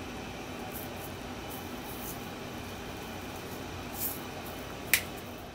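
Steady room tone with a faint hum, a few faint light ticks, and one sharp click about five seconds in.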